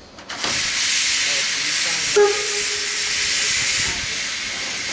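Steam locomotive Torch Lake, an 1873 Mason Bogie tank engine, venting steam in a loud, steady hiss that starts suddenly just after the beginning. A brief pitched sound cuts in about two seconds in.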